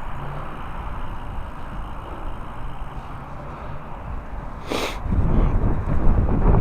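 Strong wind buffeting a microphone on a moving bicycle, over steady road noise. There is a brief sharp hiss near the end, and the wind rumble then grows much louder.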